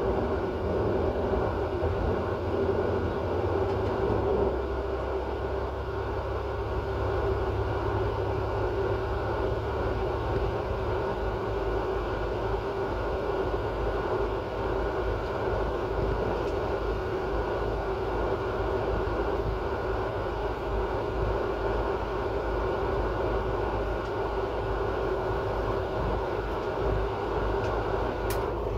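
Regional train running, heard from inside its unoccupied rear driver's cab: a steady drone of motor and wheels on rail, with one short click near the end.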